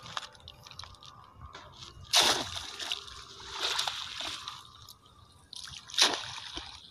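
A cast net being dunked and swished in the water, making three splashes about two seconds apart with lighter sloshing between.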